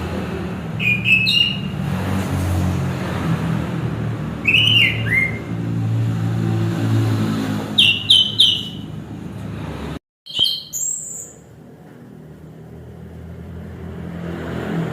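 Orange-headed thrush singing four short bursts of high chirps and falling whistled notes, spaced a few seconds apart, over a steady low hum. The sound cuts out for a moment about two-thirds of the way in, and the hum is quieter after that.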